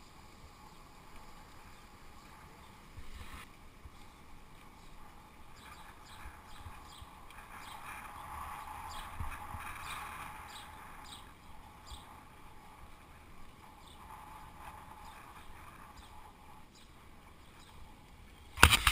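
Steady rush of wind and tyre noise from a camera mounted on a moving bicycle rolling along a paved street. A short loud burst comes near the end, just as the sound cuts off.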